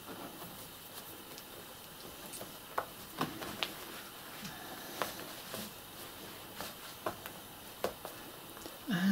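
Soft rustling and scattered sharp ticks of hand sewing: a needle and thread worked through layered fabric, the fabric handled between the fingers. A person's voice begins briefly right at the end.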